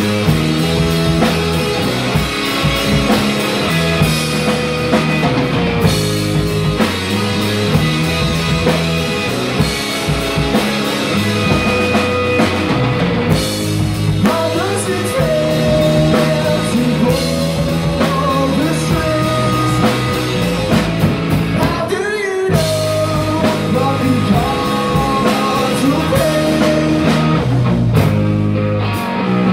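Live rock band playing: electric guitar on a Fender Stratocaster, bass guitar and a Gretsch drum kit, with a male lead vocal singing over it from about halfway through. The band breaks off for a moment about two-thirds of the way in.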